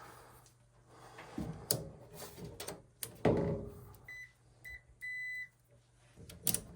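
A few handling clicks and knocks, then electronic beeps of one high pitch about four seconds in: two short ones, then one held about half a second.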